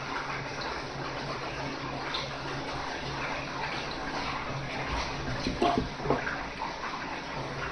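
Water running steadily from a tap, with a couple of brief knocks about five and a half to six seconds in.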